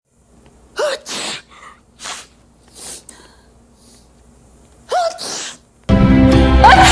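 A person sneezing twice, about four seconds apart. Each sneeze is a short rising 'ah' followed by a loud burst, with a few softer breathy sounds between them. About six seconds in, loud music with voices cuts in.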